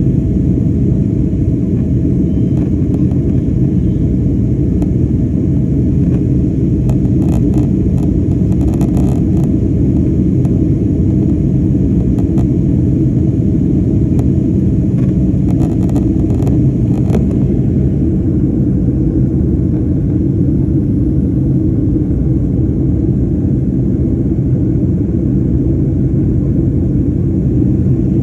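Steady, loud low rumble of a moving vehicle heard from inside, with a few faint clicks about a quarter of the way in and again just past halfway.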